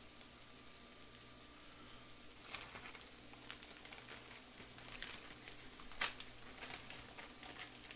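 Faint sizzle of perch roe frying in butter in a pan. From about two and a half seconds in, a plastic zip-top bag crinkles and rustles as it is handled, with one sharp snap about six seconds in.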